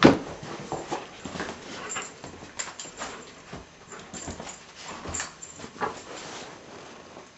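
A Labrador puppy playing rough with a toy: a sharp knock at the start, then irregular scuffling, knocks and short sounds from the dog, fading out near the end.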